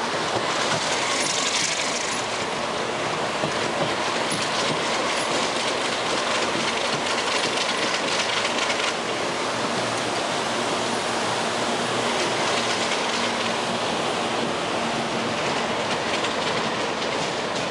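Train wheels running steadily over the rails, heard from aboard a Budd-Mafersa stainless-steel passenger car hauled by an ALCO RS-3 diesel-electric locomotive, with a brief higher hiss about a second in.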